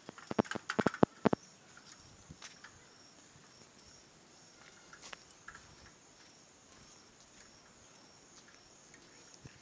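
Insects chirring steadily in the trees, a high, slightly pulsing drone. During the first second or so, a quick run of sharp clicks and knocks sounds over it.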